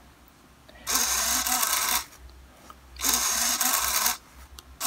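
Small hobby servo motor whirring through two sweeps about a second long, a second apart, with a third starting at the end, as it swings a model wiper arm to and fro. It is running at the medium pace that an Arduino rain sensor sets when it reads medium rain.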